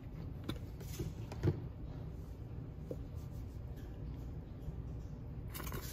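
Faint clicks and knocks of a mayonnaise squeeze bottle being handled one-handed, then a short squirt of mayonnaise near the end, over a low steady background hum.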